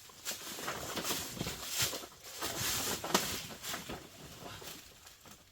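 Irregular clicks, knocks and rustling of hands handling tools and equipment, fading out near the end.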